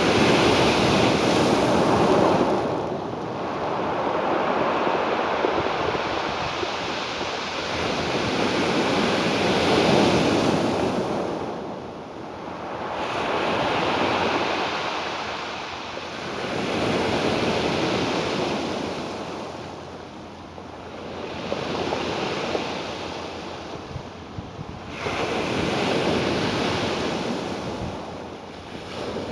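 Ocean waves washing on a shore, each wash swelling and fading about every three to four seconds, with some wind noise on the microphone.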